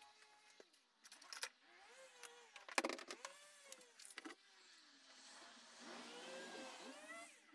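Faint clicks and taps of hands handling a metal bar and a measuring tool on a mitre saw bed, three sharper clicks spaced about a second and a half apart. Under them runs a faint wavering tone that rises and falls, busiest near the end.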